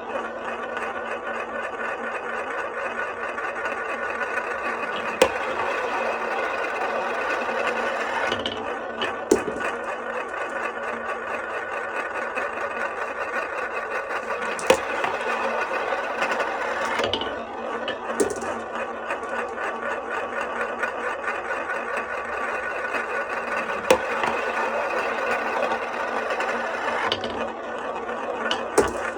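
Glass marbles rolling continuously down a HABA wooden marble run: a steady wooden rattle, with a sharp clack every few seconds as a marble drops or strikes the track.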